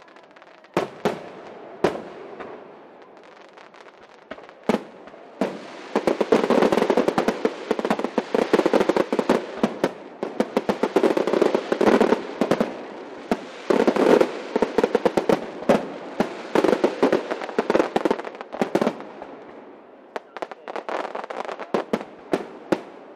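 Aerial fireworks: a few separate bangs, then from about five seconds in a dense run of rapid bangs and crackling for some fifteen seconds, thinning to lighter crackling near the end.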